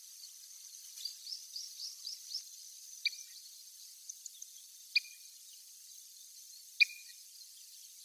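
Kentish plover calling: a quick run of about six short, soft rising notes, then three loud, sharp single calls about two seconds apart, each a quick downward sweep.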